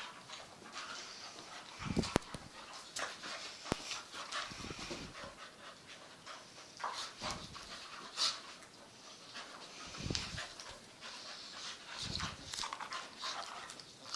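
Two dogs playing, panting, with irregular scuffling noises, a few sharp clicks and occasional low rumbles.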